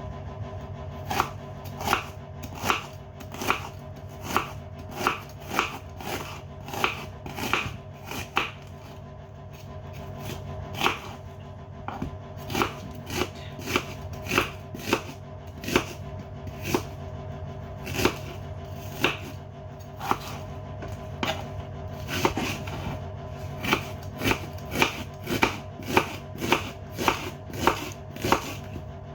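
Kitchen knife chopping onions on a cutting board in runs of sharp knocks, about one to two a second, with a couple of short pauses. A faint steady hum runs underneath.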